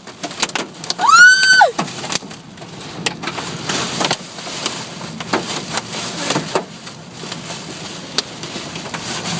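Inside a car driving through a storm: a steady wash of noise with scattered sharp taps of rain and hail on the car. About a second in comes one loud high squeal that rises and then falls in pitch.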